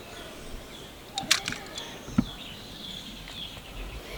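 A few sharp clicks, a cluster about a second in and another near the middle, over a faint background with high chirps.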